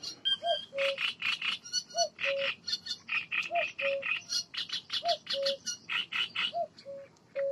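Frogs calling in rapid trains of croaks, over and over, with a low two-note call repeating about every second and a half.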